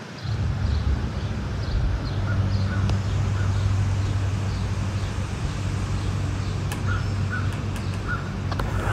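A steady low mechanical hum starts about a quarter second in and keeps going. Short bird calls repeat over it.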